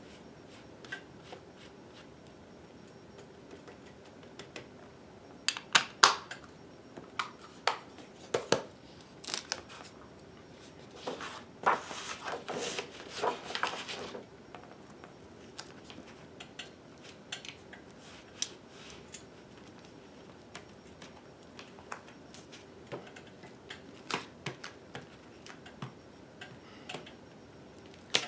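Scattered taps and clicks of hand-held stamping tools: an ink pad, a 3D-printed TPU rubber stamp and a clear acrylic stamp block being handled on a tabletop while the stamp is re-inked. A cluster of loud clicks comes about six seconds in, and a few seconds of rustling and scraping follow a little later.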